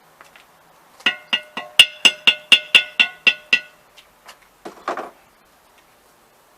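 About a dozen quick ringing metal strikes, roughly four a second, on an old metal wheel, then a brief scraping rasp.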